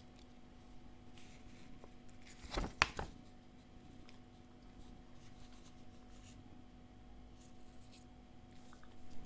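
Unboxing handling of a portable folding desk fan and its packaging: faint rustles and light taps, with two sharp knocks in quick succession near the three-second mark, over a faint steady hum.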